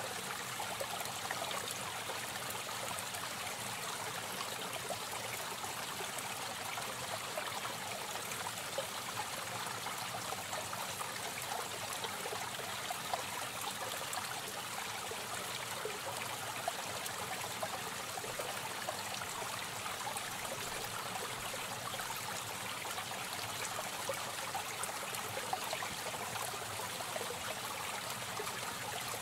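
Aquarium water trickling steadily, a continuous running-water hiss with tiny crackling splashes.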